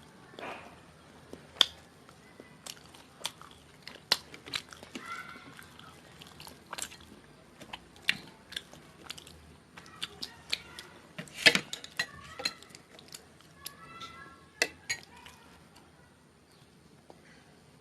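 Close-up chewing and biting of chhole bhature, with irregular wet mouth clicks and smacks, a cluster of the loudest ones about two-thirds of the way in.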